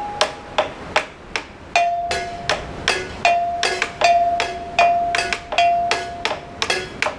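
Rhythmic metallic striking: sharp clicking hits about three a second, many leaving a ringing note that holds one pitch, settling a step lower about two seconds in.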